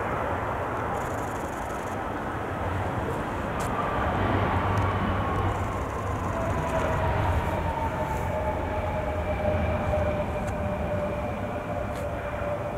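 Embraer E-jet regional airliner with CF34 turbofans on its landing rollout: a steady rushing jet noise with a low rumble, and an engine whine that falls slowly in pitch as the jet slows down the runway.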